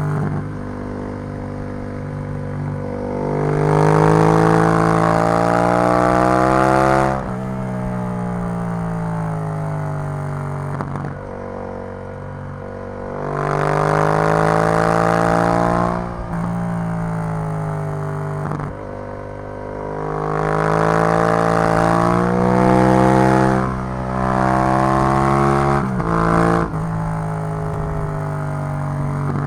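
Yamaha MT-07's 689 cc parallel-twin engine through an Arrow full exhaust system while riding. The revs climb and fall repeatedly as the bike accelerates and eases off, with sudden drops in pitch at gear changes about a quarter, half and nine-tenths of the way through.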